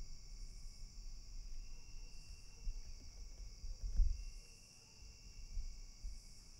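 Insect chorus: a steady high-pitched trill with a fainter buzz that comes and goes about once a second, over a low rumble. One dull thump about four seconds in.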